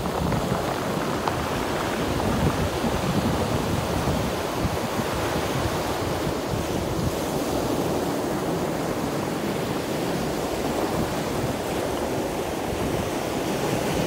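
Ocean surf breaking and washing up over coral and rocks on a sandy beach: a continuous rush of foaming water, swelling slightly about two seconds in.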